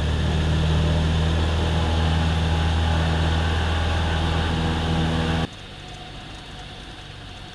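Cessna 172M's four-cylinder Lycoming engine and propeller running at full power on the takeoff roll, a loud, steady drone. About five and a half seconds in it drops suddenly to a quieter, steady engine drone in the climb.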